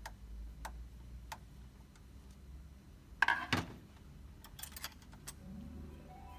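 Light ticks at an even pace, about one every two-thirds of a second, then a louder brief clatter a little after three seconds and a few quick small clicks near the five-second mark.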